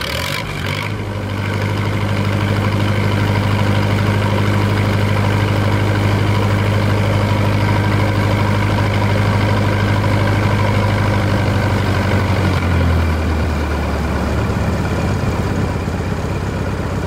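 Engine running steadily just after a cold start without choke, a low even drone; about 13 seconds in its note drops a little and the running becomes rougher.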